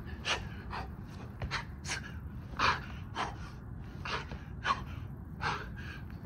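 A man breathing hard in short, rapid gasps, about one and a half breaths a second, from the exertion of doing burpees.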